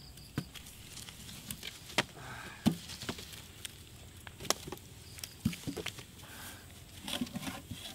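Wooden sticks prodding and knocking at a smouldering, charred straw mound over a hot metal tin: a scatter of irregular sharp knocks and scrapes.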